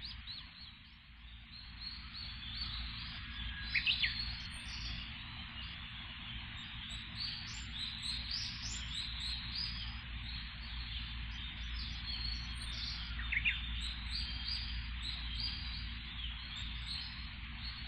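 Birds chirping in a forest, many short high calls throughout, with two louder sweeping calls about four seconds in and again near the end. A steady low rumble runs underneath.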